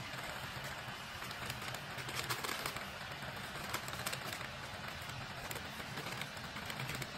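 Chopped garlic sizzling in hot oil in a wok: a steady hiss full of fine crackles and pops.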